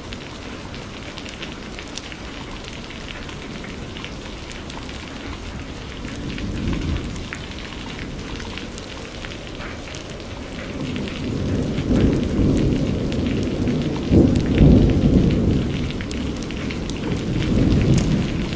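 Steady rain with individual drops ticking, and a low rumble of thunder that builds about halfway through and is loudest in the last third.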